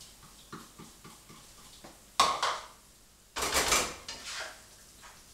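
Cookware clinking: a utensil scraping and knocking in a frying pan, with soft clicks, a sharp knock about two seconds in, and a louder clatter of dishes about a second later.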